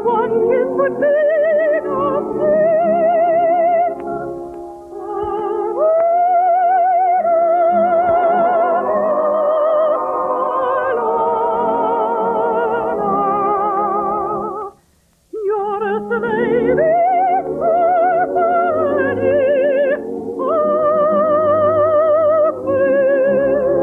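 Orchestral operetta music with singing in long held notes with heavy vibrato, the melody in a high soprano range. The music stops briefly about two-thirds of the way through and then resumes.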